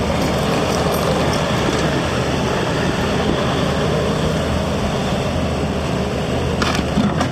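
Bobcat T595 skid steer's diesel engine running steadily. A brief rattle comes near the end.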